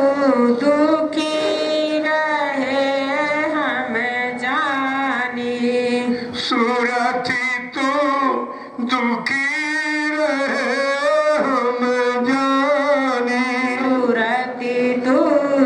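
A devotional song (bhajan) sung with musical accompaniment: long, wavering sung lines over a steady held note.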